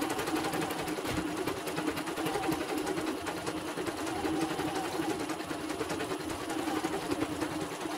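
CNY portable embroidery machine stitching out a design: a steady, fast run of needle strokes with no break.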